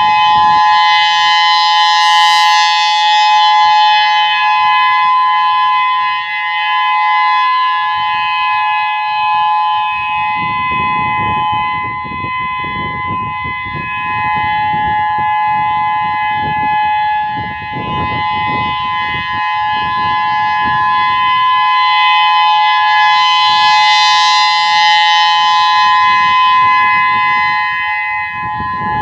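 Whelen WPS-3016 electronic outdoor warning siren sounding a test, holding a steady two-note tone with no rise or fall in pitch. The sound swells brighter and louder about two seconds in and again near the end.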